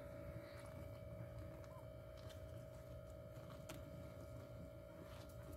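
Near silence: faint room noise with a steady low hum and a few soft scattered ticks.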